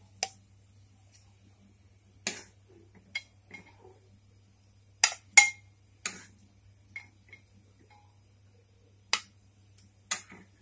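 A steel spoon clinking against the rim of an aluminium pot and against a plate while boiled gatte are lifted out. There are about eight sharp, separate clinks, some with a short ring, and the loudest pair comes about five seconds in.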